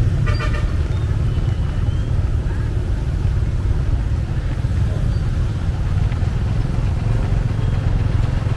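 Steady low rumble of motor traffic on a road, with a brief pitched sound about half a second in.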